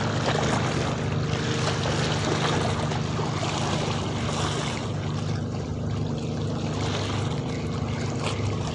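A steady, unchanging engine hum, like a boat motor running, under a constant rush of wind and water noise.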